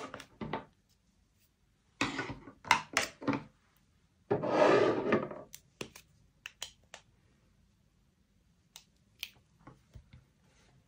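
Stationery and paper being handled on a desk: a cluster of taps and rustles about two seconds in, a rub lasting about a second near the middle, then a few scattered light clicks.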